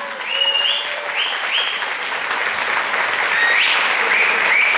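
Audience applauding a kickboxer's ring introduction, with several short high rising tones cutting through the clapping.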